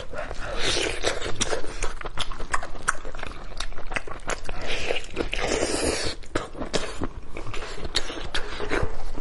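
Close-miked eating: irregular wet smacking, chewing and sucking clicks of lips and tongue as meat is gnawed off a stewed goat or sheep head.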